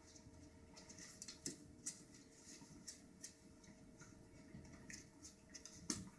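Faint, irregular light taps and scuffles of a toy poodle and a cat wrestling: paws and claws ticking on the floor, with one sharper knock near the end.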